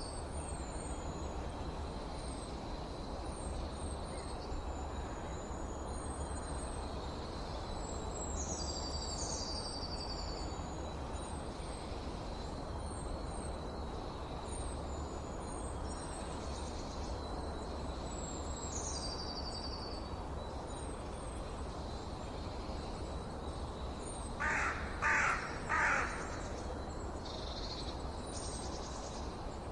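Outdoor birdsong: small songbirds repeat high descending trills and short high chirps over a steady low rush of background noise. About 25 seconds in, a larger bird gives three loud, harsh calls in quick succession.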